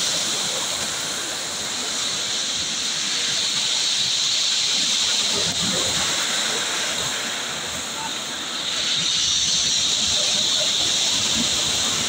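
Sea waves breaking and foaming onto a pebble beach: a steady rush and hiss of surf that swells and eases as each wave comes in and washes back over the stones.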